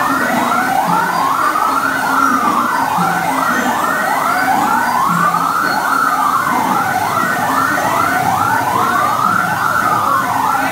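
Fire siren sounding without a break: a slow wail that rises and falls every few seconds, layered with a fast repeating yelp of about three or four sweeps a second.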